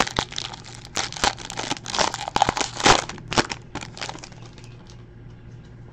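Foil wrapper of a baseball card pack crinkling and tearing as it is torn open by hand: a dense run of crackles that thins out after about three and a half seconds.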